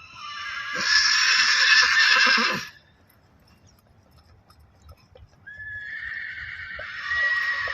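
Arabian horse neighing: one long, shrill neigh of about two and a half seconds near the start, then after a pause a second neigh that begins with a rising pitch.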